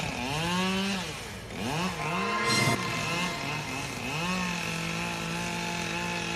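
Chainsaw revving up and down several times, then held at a steady high run, with a brief burst of noise about two and a half seconds in.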